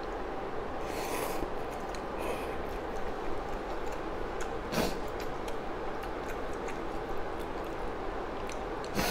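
Someone eating instant cup noodles with a plastic fork: short slurping and mouth noises and the fork scraping in the paper cup, with two sharper knocks about five seconds in and near the end, over a steady background noise.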